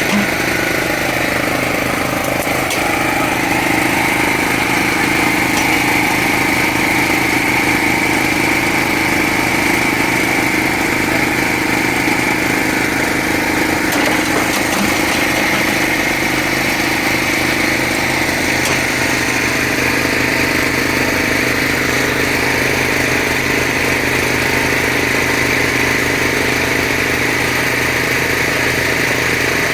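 Small CAT excavator's diesel engine running steadily, with a steady high whine over the engine note.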